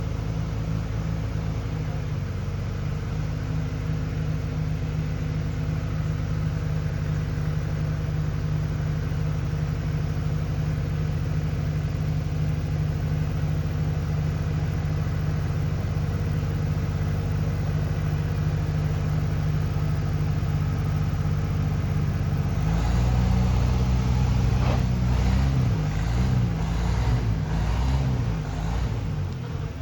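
Car engine running steadily, growing louder and more uneven about 23 seconds in.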